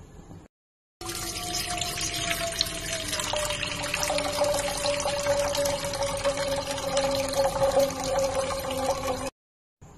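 A stream of water pouring into a stainless steel pot, filling it. The pot gives a ringing tone that slowly falls in pitch as it fills. The pouring starts about a second in and stops abruptly near the end.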